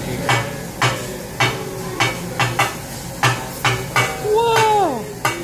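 Metal hibachi cooking utensils clanking sharply against the steel teppanyaki griddle, about ten knocks at an uneven pace, over a low sizzle. About four seconds in, a voice calls out with a falling cry.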